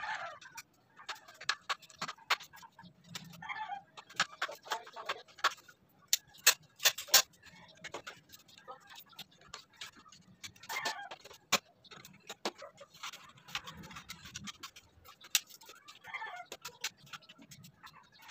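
Irregular sharp wooden clicks and knocks from the slatted wooden frame of a crib being handled and worked loose or fitted together by hand.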